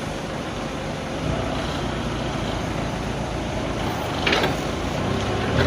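Steady mechanical running noise with two brief sharper sounds, one about four seconds in and one at the end.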